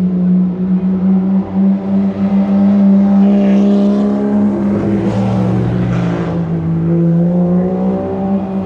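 A car engine and exhaust running loud and held at a steady rev. The pitch wavers in the middle and drops slightly in the last couple of seconds.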